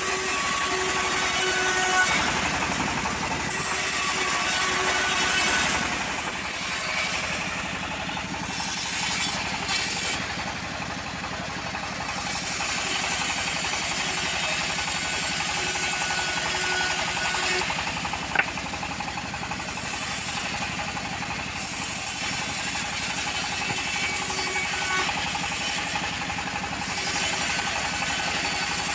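Homemade bandsaw mill cutting teak planks, its band blade driven by a stationary engine, running steadily with the hiss of the blade through the wood. It is a little louder over the first six seconds, and there is one sharp click about 18 seconds in.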